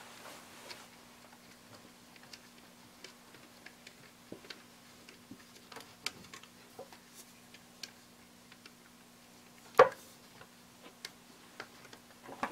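Scattered faint taps and clicks of spoons knocking and scraping in small bowls as slime is stirred, with one louder sharp click about ten seconds in.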